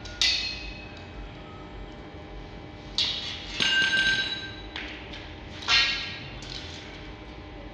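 Steel square-tube frame clanking as it is knocked and handled. There are several sharp metallic clanks, each ringing briefly, with a longer ringing clatter around the middle.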